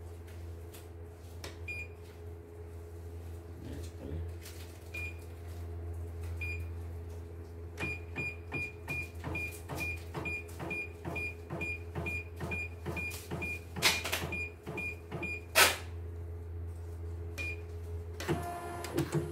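Computerised embroidery machine's control panel beeping at key presses over a steady low hum, first singly, then from about eight seconds in a run of beeps about three a second, each with a click, as the embroidery hoop is jogged into position. A few louder knocks come near the end.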